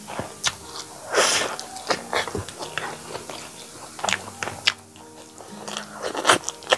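Close-miked mukbang eating sounds: wet chewing, lip smacks and clicks as rice and chicken curry are eaten by hand, with a short louder hiss about a second in. Soft background music plays underneath.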